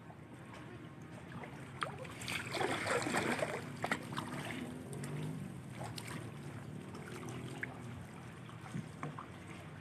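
Kayak paddles dipping and splashing in calm water, with a louder rush of water about two and a half seconds in and a few sharp knocks.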